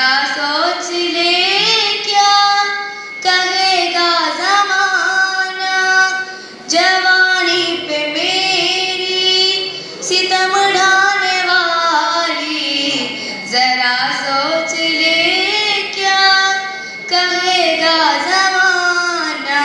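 A young woman's solo voice singing unaccompanied: a slow Urdu nazm in long, drawn-out, ornamented phrases whose pitch bends and slides, with short breaths between phrases.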